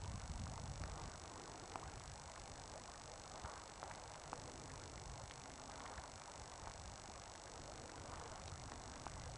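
Wind buffeting the microphone, an uneven low rumble over a faint steady hiss, with scattered light ticks at irregular moments.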